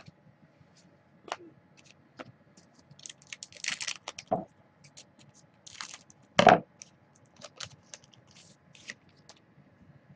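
Trading cards and a card-pack wrapper being handled: scattered light clicks and crinkles, a denser crinkling around three to four seconds in, and the loudest sharp snap about six and a half seconds in as scissors cut a pack open.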